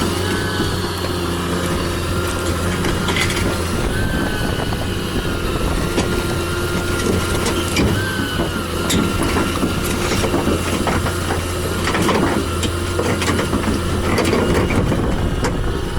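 Heavy machinery's engine running steadily, with a thin high whine that wavers now and then and scattered clanks.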